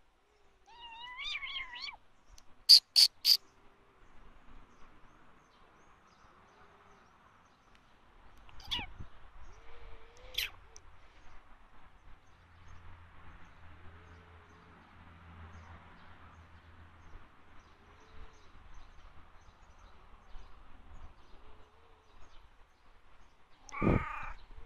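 Domestic cat meowing once, a short gliding call about a second in, while being petted. Just afterwards come three loud, sharp, high-pitched sounds close together, the loudest thing heard, with a few fainter sharp sounds later and a short pitched sound near the end.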